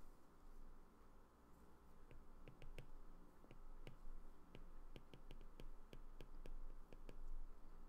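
Faint stylus tip tapping and clicking on a tablet's glass screen while hand-lettering words: an uneven string of sharp little clicks, sometimes several in quick succession, coming more often from about two seconds in.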